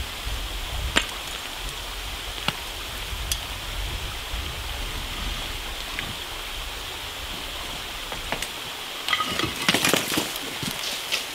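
Concrete blocks being worked loose from the top of a block wall by hand and thrown onto a pile of broken block: a few scattered knocks, then a burst of clattering crashes about nine seconds in, over a steady background hiss.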